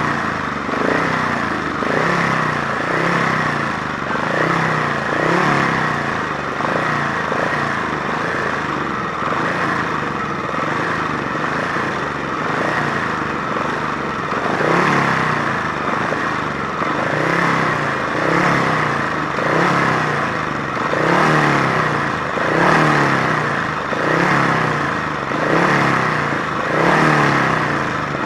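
Matchless G50 500cc single-cylinder racing engine held at a fast idle and blipped on the starting grid. The revs rise and fall every second or two as the engine waits for the start.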